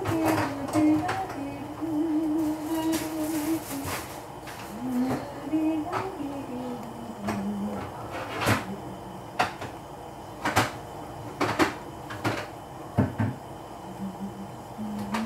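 A person humming a slow tune, holding notes and stepping between them. From about halfway through, sharp clicks sound roughly once a second, louder than the humming.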